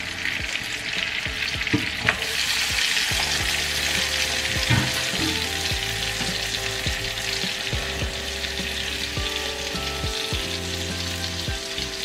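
Pork chops sizzling as they fry in hot butter and canola oil; the sizzle swells about two seconds in as the second chop goes into the pan, with a few light clicks.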